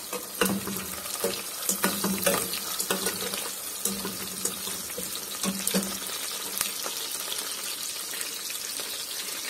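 Sliced onions sizzling steadily in hot oil in a steel pot, with a metal spatula scraping and knocking against the pot now and then over the first six seconds.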